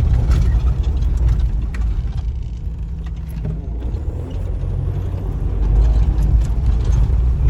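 Road traffic: motor vehicles passing with a low rumble that eases in the middle and swells again about six seconds in.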